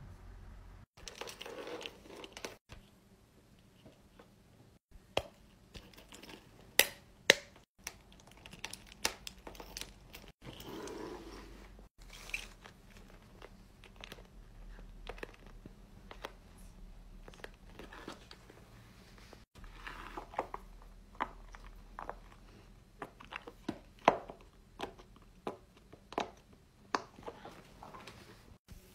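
Fidget toys handled close up: scattered sharp clicks and crinkly, crunchy handling noises, including a hand squishing a bowl of water beads, broken by a few brief dropouts.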